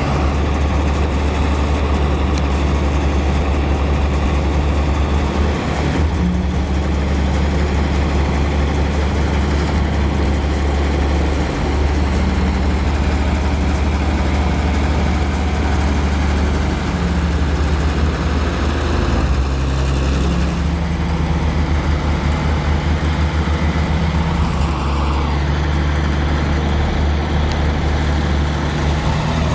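Heavy diesel engine running steadily, with a deep low rumble throughout.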